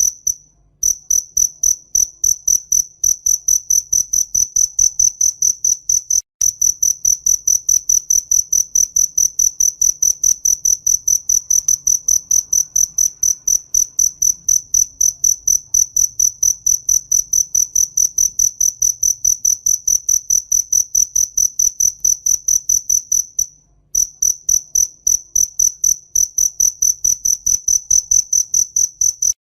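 Cricket chirping: a high, even trill of quick regular pulses, broken by short pauses about half a second in, around six seconds and near twenty-four seconds.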